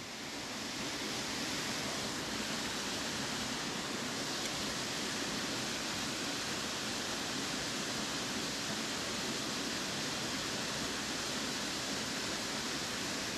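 River water rushing steadily, an even hiss with no distinct events.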